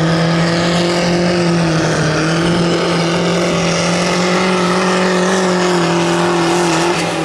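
Compact diesel pulling tractor's engine running flat out at steady high revs as it drags a weight-transfer sled, then easing off near the end as it completes a full pull.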